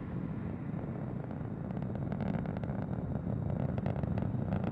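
Low, steady rumble of the distant Atlas V rocket (RD-180 engine and five solid rocket boosters) reaching the listener, with faint crackling starting to come through near the end.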